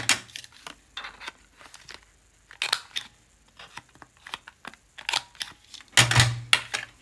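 Paper and card being handled on a desk: scattered light rustles and clicks, with a louder burst of rustling about six seconds in.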